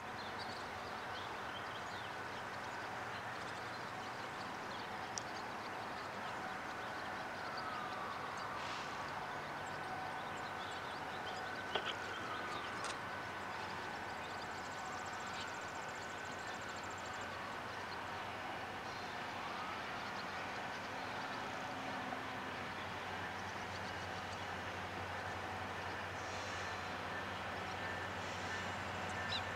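Distant diesel freight locomotives approaching, a low rumble that grows stronger in the second half. Over it, a faint wailing tone glides slowly up and down several times.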